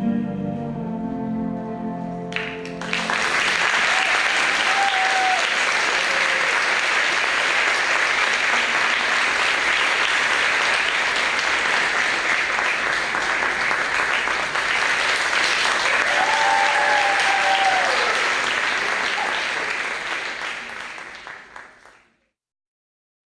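Recorded stage music ends about two seconds in, then a theatre audience applauds steadily, the clapping fading away and cutting to silence near the end.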